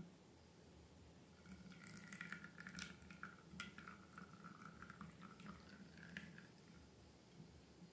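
Faint wet squishing, with small sticky clicks and pops, of slime being pressed and worked by hand; it starts about a second and a half in and dies away near the end.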